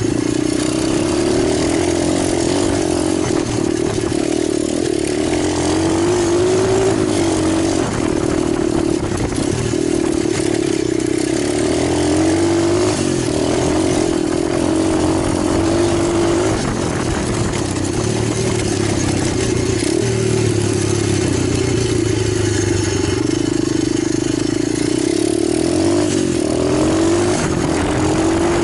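Italjet 125cc pit bike engine running continuously, its pitch rising and falling in small glides with the throttle.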